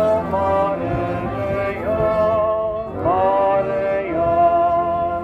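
Outdoor brass band playing a slow tune in long held notes, moving from one sustained note to the next about every second.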